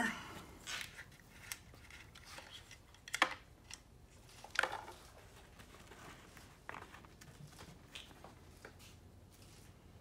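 Plastic caps being unscrewed and handled, first the bar oil filler cap on a pole saw head, then the cap of a plastic jug of bar and chain oil: a few scattered sharp clicks and scrapes, the loudest about three and four and a half seconds in.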